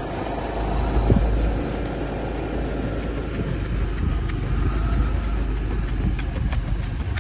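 Steady low rumble of a motor vehicle moving along, with wind on the microphone.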